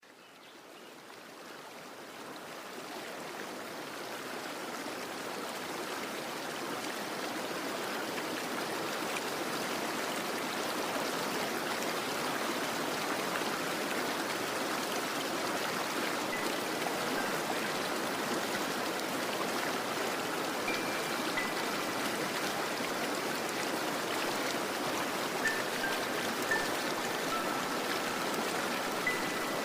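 Steady rushing water noise from a relaxation rain-sound track, fading in over the first several seconds and then holding even. In the second half a few short, faint high tones sound over it.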